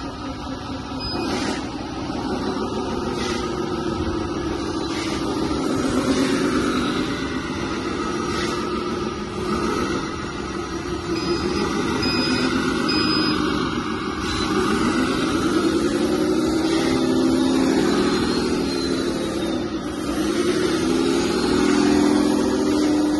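1/14-scale RC hydraulic wheel loader running, its motors and hydraulic pump whining steadily, with the pitch rising and falling repeatedly as it works, most noticeably in the second half.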